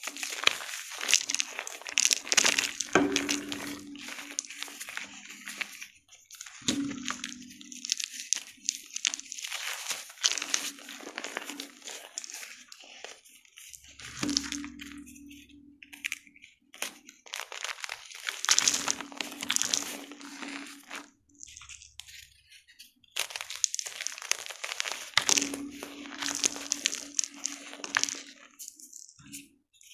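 Gym chalk being crushed and crumbled close to the microphone: crisp, dense crunching in bursts of a few seconds, separated by brief pauses, each burst often opening with a duller press before the crackle.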